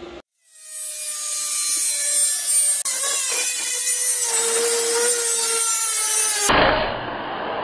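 Angle grinder cutting sheet metal: the disc starts grinding about half a second in, with a harsh rasping noise and a humming pitch that sags slightly as it bites. About six and a half seconds in it cuts abruptly to a duller, steady whirr.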